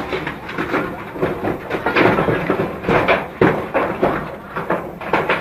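Two cats scuffling on a corrugated metal roof: irregular clattering, knocks and rattles of the sheet metal as they grapple and scramble.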